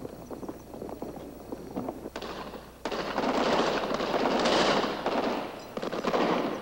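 Battle gunfire on an archival combat film soundtrack: scattered shots at first. About three seconds in comes a louder, denser stretch of firing that lasts about three seconds and then thins out again.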